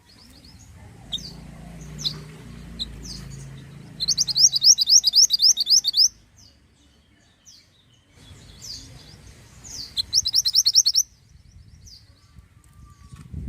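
Mantenan bird singing: scattered sharp high chirps, then a loud rapid trill of repeated rising notes at about five a second for roughly two seconds, and a second shorter trill about ten seconds in.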